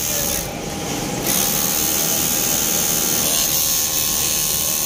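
Industrial overlock sewing machine running at speed, stitching a sleeve seam through fabric. It runs steadily, dipping briefly about half a second in before picking up again.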